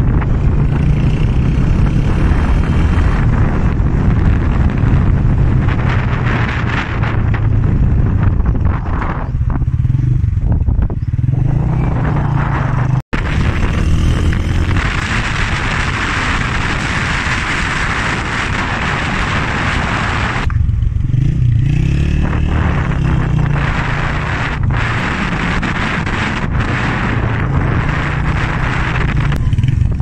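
Motorcycle engine running while riding, with wind rushing over the microphone; the wind rush swells for several seconds past the middle. The sound drops out for an instant about 13 seconds in.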